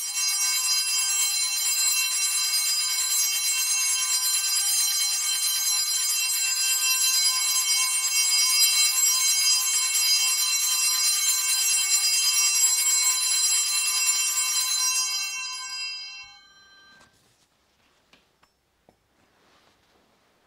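Altar bells rung steadily through the elevation of the chalice at the consecration of the Mass, then left to ring out and fade over the last couple of seconds.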